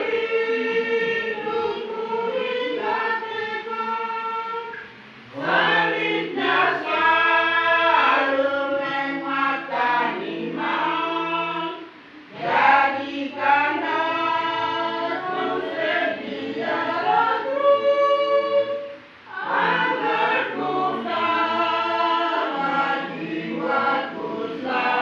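A choir singing in several voices, in phrases separated by short breaths about every seven seconds.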